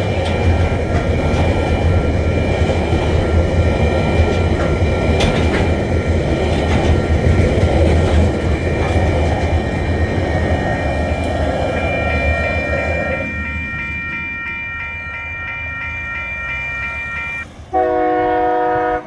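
Loaded coal wagons rolling past with a low rumble and wheel clatter while the level-crossing warning bell rings steadily. The wagon noise dies away about two-thirds of the way through, leaving the bell, and a loud horn blast of about a second and a half sounds near the end.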